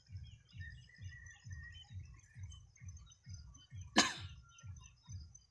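Outdoor field ambience. Soft low thumps repeat about three times a second, with faint bird chirps, a short whistle in the first second and a thin steady high tone. About four seconds in there is one sharp crack, the loudest sound, as hands grab a chain-link fence.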